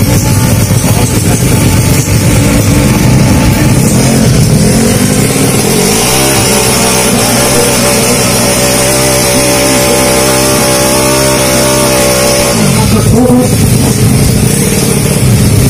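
Tuned 200cc automatic-scooter drag-bike engine running loudly; about six seconds in it revs up and holds a steady high rev for several seconds, then drops back about twelve and a half seconds in.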